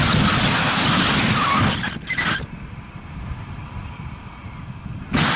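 Wind buffeting the microphone in loud gusts: a rushing blast that cuts off sharply a little under two seconds in, a short gust just after, then a quieter stretch and another loud gust near the end.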